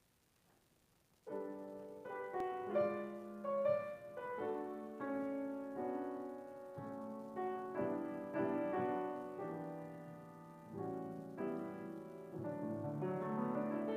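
Grand piano playing, starting suddenly about a second in: chords held with the sustain and a melody line over them, each note struck and fading.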